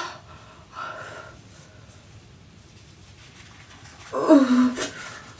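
A woman's short wordless cry with a falling pitch about four seconds in, as she peels a charcoal peel-off mask from her face; the mask peeling hurts.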